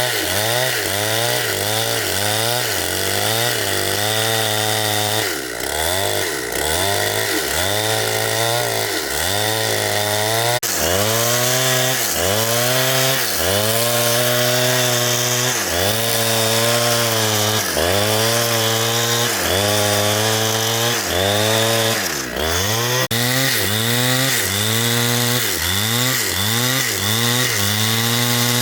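Chainsaw cutting into a big tree trunk, its engine running at high speed, with the pitch dipping and recovering about once a second as the saw is worked through the wood. A steady lower hum runs underneath.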